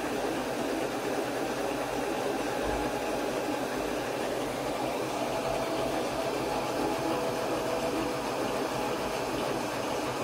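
Laser cutter running as it engraves plywood: a steady mechanical hiss and hum, with a faint whine that comes and goes as the head moves.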